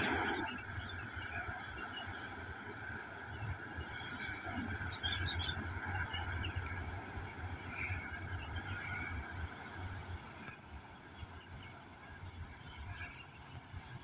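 Insects trilling in fast, even pulses that pause briefly near the end, over a faint low rumble.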